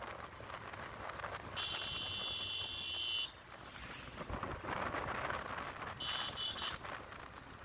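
Wind and road noise from a moving motorcycle, cut through twice by a high-pitched vehicle horn: a long honk about a second and a half in, and a shorter one about six seconds in.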